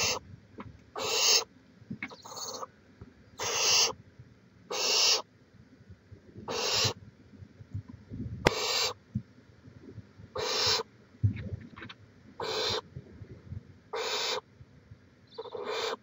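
Barn owl chicks in a nest box giving repeated rasping, hissing screeches, about ten in all, each roughly half a second long and coming every second or so: the snoring-hiss begging call of young barn owls. Soft scuffling and knocks from the birds moving against the box lie underneath.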